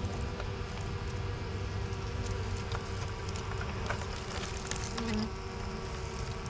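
Honey bees buzzing in a steady drone, with a low rumble underneath and a few light clicks.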